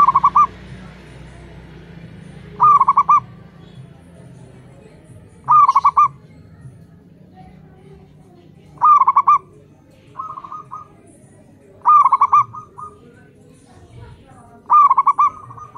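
Zebra doves (perkutut) cooing: six loud, quick trilled coo phrases about every three seconds, with one fainter phrase in between from another dove answering.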